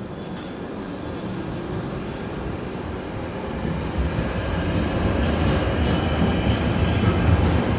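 London Underground Northern line train at the platform, a steady low rumble with a faint high whine, growing louder about four seconds in.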